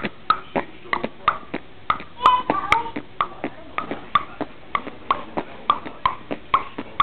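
A homemade rhythmic beat: sharp clicks about three a second, each with a short pitched blip, and a brief pitched vocal sound about two and a half seconds in.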